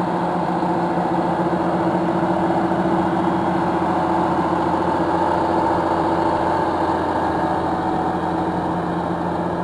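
John Deere 7930 tractor's six-cylinder diesel engine running steadily at close range as the tractor drives over chopped grass silage, packing it down; it swells slightly partway through.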